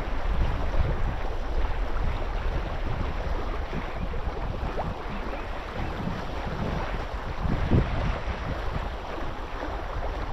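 Wind buffeting the microphone over steady noise of waves and moving water.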